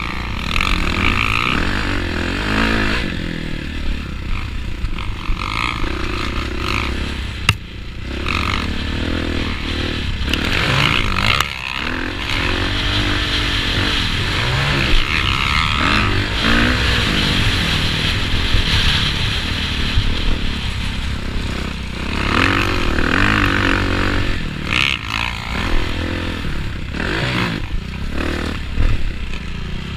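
Motocross bike engine revving up and down as the rider races, the pitch rising and falling again and again through shifts and turns. It is heard from a helmet-mounted camera, with a steady rushing haze and scattered short knocks and clatter underneath.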